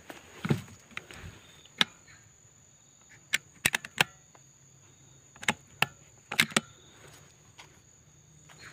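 About a dozen irregular sharp snaps and clicks, some in quick clusters, like twigs and dry leaves cracking underfoot, over a steady thin high whine.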